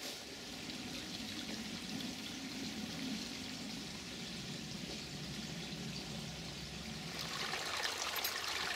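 Small woodland stream trickling steadily, getting louder over the last couple of seconds.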